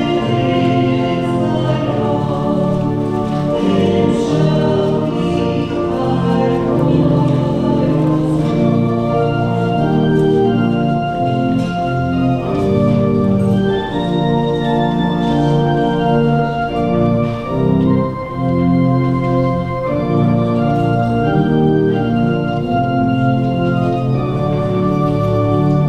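Church organ playing slow, held chords.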